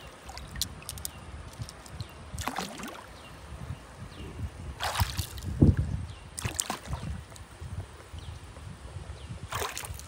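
Hands sloshing and splashing in shallow river water while scooping small pebbles from the stony riverbed, with about four louder splashes over a steady low rumble.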